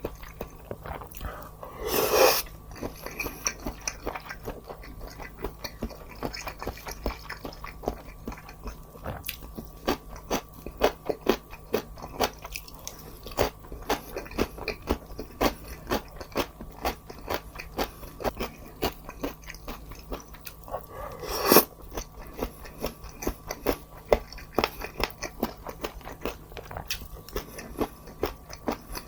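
Close-miked eating: crunchy bites and chewing of fried food, with many small irregular crunches and two louder bites, one about two seconds in and one near 21 seconds.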